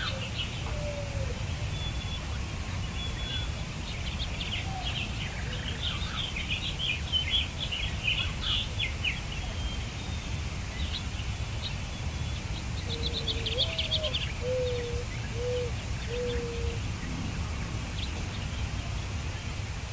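Several birds singing, with quick high chirps and trills. A short run of lower whistled notes comes about two-thirds of the way through, and a steady low rumble of background noise runs underneath.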